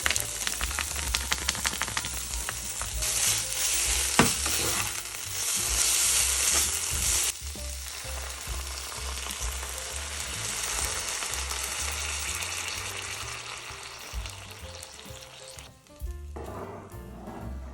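Food sizzling as it fries in a pan, with stirring, the sizzle swelling for a few seconds and then easing. A single sharp knock, like a utensil striking the pan, about four seconds in. Near the end the sizzle fades and music comes in.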